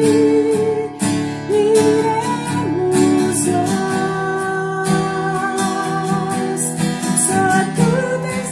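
A woman singing a worship song, with long held notes, accompanied by a strummed acoustic guitar.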